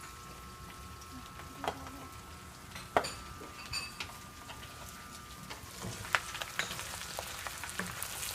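Pieces of pork belly frying in a pan, the fat starting to render out. Sharp clacks of a utensil against the pan come through, the loudest about three seconds in, and the sizzle grows louder in the second half.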